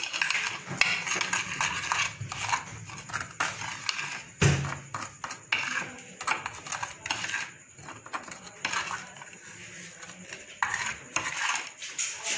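Metal spoon scraping and clinking against a ceramic plate in irregular strokes while spreading spice marinade over a fish fillet, with one louder knock about four and a half seconds in.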